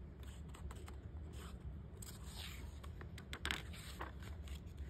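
A page of a hardcover picture book is turned by hand, with faint paper scraping and rustling. A few light clicks come near the end.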